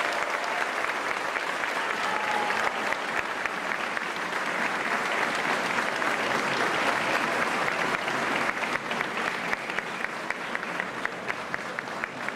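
Crowd applauding: dense, steady clapping from many hands that thins toward the end into more distinct separate claps.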